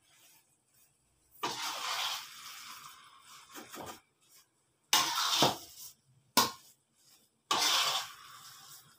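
Metal spatula scraping across a nonstick pan as thick, sticky rice is stirred and turned over, in four separate strokes.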